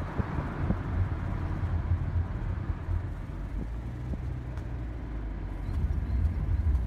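Car driving along a road, heard from inside it: a steady low rumble of tyres and engine.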